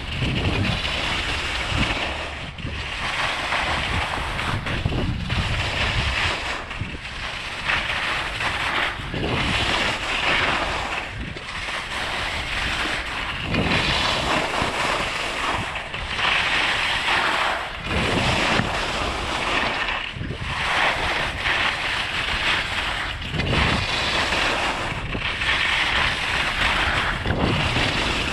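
Skis turning down a groomed piste: the edges hiss and scrape on the snow in repeated swells every second or two, over a steady rush of wind on the camera's microphone.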